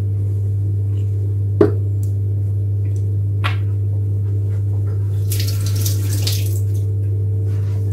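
Kitchen tap running into the sink for about a second, starting a little past the middle, over a steady low hum. A sharp knock comes about a second and a half in, and a lighter one about three and a half seconds in.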